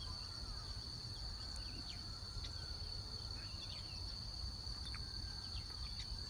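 Outdoor nature ambience: a steady, high insect drone like crickets, with many short bird chirps and quick downward-sweeping calls scattered through it over a low rumble.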